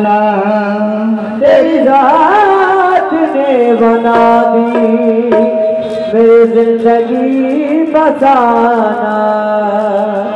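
Qawwali-style Sufi devotional singing: an ornamented, wavering vocal line over a steady held drone, easing down near the end.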